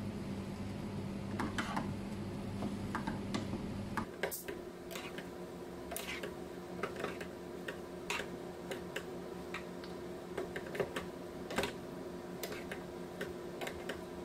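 Wooden spatula clicking and scraping against a nonstick pan as stir-fried flat rice noodles are tossed, in irregular taps. Underneath is a steady hum that steps higher about four seconds in.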